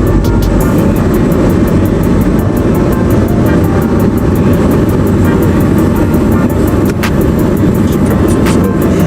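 Loud, steady rumble and rush of a car in motion, with no clear breaks or single knocks.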